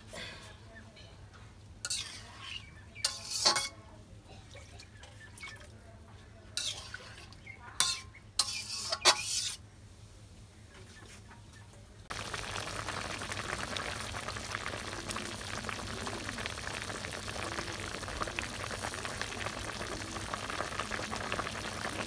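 A few sharp clinks and scrapes of a metal spoon and steel bowls against a wok, then, about halfway through, a steady crackling sizzle of vegetable curry cooking in the wok.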